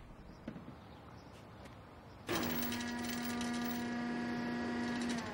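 Tow truck winch running with a steady mechanical whine as the boom hoists the car. It starts suddenly a little over two seconds in, after a faint stretch with one light click.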